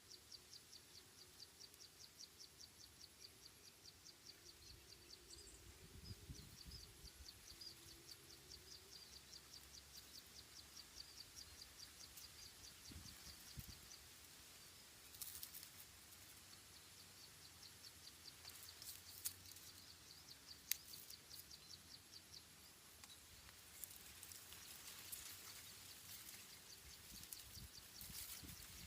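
Faint, fast, evenly repeated high chirping, about four chirps a second, fading in the second half, with a few sharp clicks.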